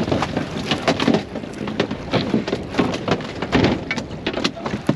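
Wind buffeting and choppy water slapping against a small boat's hull: a steady rush broken by many irregular knocks and crackles.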